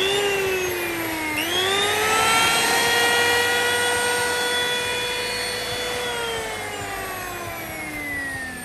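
Makita 1805N power planer's electric motor running free with a high whine. The pitch dips briefly about a second and a half in and climbs back to full speed, holds steady, then falls slowly from about six seconds in as the motor winds down.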